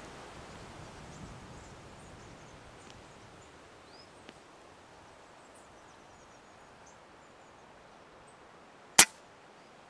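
Air rifle firing a single pellet shot: one short, sharp crack about nine seconds in, after a few seconds of faint wind rustle.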